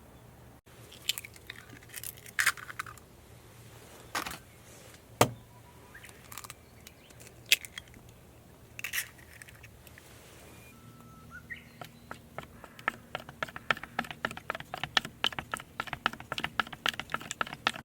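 Small hard objects being handled: scattered metallic clinks and knocks, then, about two-thirds of the way in, a fast, steady run of small clicks.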